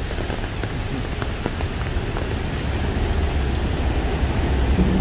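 Steady rain falling on wet pavement and a flooded road, with scattered faint drop ticks. A low rumble grows stronger in the second half.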